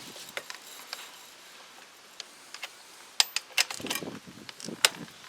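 Torque wrench on a dirt bike's rear axle nut: scattered sharp metallic clicks, bunched together about three to five seconds in, as the nut is tightened to 78 newton metres.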